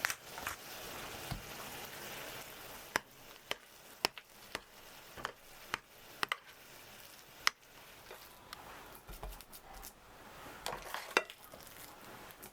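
Cooking in a kitchen: a light sizzle of frying for the first couple of seconds, then scattered sharp clicks and knocks of utensils against a pan and dishes.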